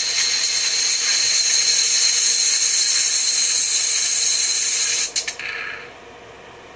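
A 4-ohm tweeter overdriven through a passive crossover at about 200 watts, giving out a loud, harsh hiss-like sizzle of high frequencies. About five seconds in it crackles and cuts out, the sign of the overloaded tweeter burning through.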